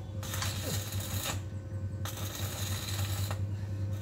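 Arc welding on a steel truck bumper bracket: the arc crackles in two runs of about a second each, with short breaks between them, over a steady low hum.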